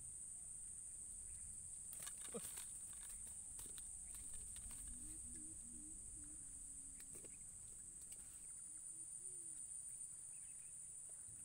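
Steady, high-pitched insect drone, with a few soft clicks and rustles about two seconds in.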